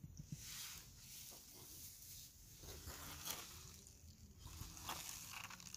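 Faint rustling and crinkling of the plastic wrap around a foil disposable grill as it is picked up and handled, in short scattered bursts.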